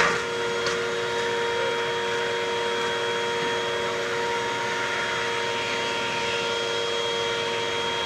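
Upright vacuum cleaner running steadily with a high motor whine. There is a sharp click right at the start.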